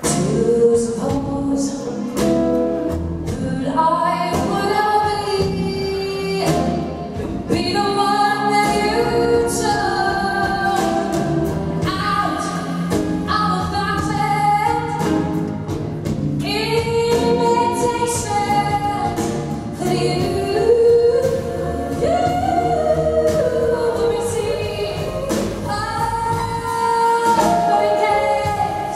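A woman singing a live song into a microphone with sustained, gliding notes, backed by electric archtop guitar and upright double bass.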